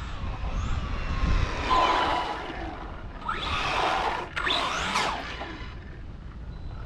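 Arrma Vorteks 3S 4x4 RC truck's brushless electric motor whining at speed, its pitch rising and falling. It swells twice, about two seconds in and again from about three to five seconds in.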